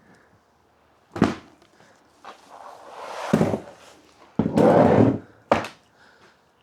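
Wooden large-format field camera being handled and looked over: a sharp knock about a second in, a thunk around the middle, a longer loud scrape, and another sharp knock near the end.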